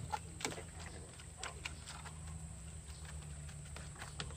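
Steady low hum of a pond-draining water pump's engine running, with scattered small splashes and taps from the wet pond.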